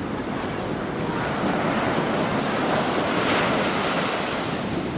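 Surf breaking and washing up on a sandy beach: a steady rush of water that swells to its loudest around the middle and eases off again.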